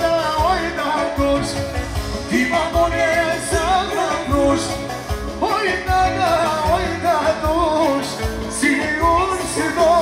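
Live wedding band playing an Albanian dance song with a steady beat and a wavering melody line, a male singer singing over it into a microphone.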